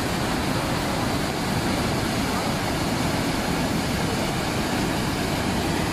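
Flood-swollen river rushing past in a steady, dense torrent, the churning water throwing up spray.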